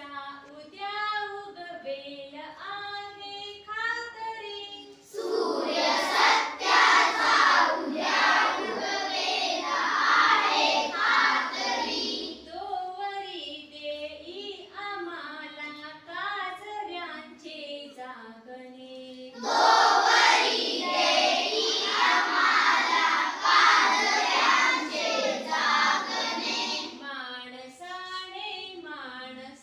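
Schoolchildren singing a song in a classroom, call and response: a single voice sings a line, then the whole class sings together, much louder. The group comes in twice, each time for about seven seconds.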